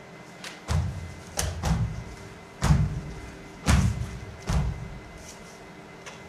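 About six heavy thumps, unevenly spaced, each with a sharp click on top, over a steady low drone. The thumps fall in the first two thirds and stop about four and a half seconds in.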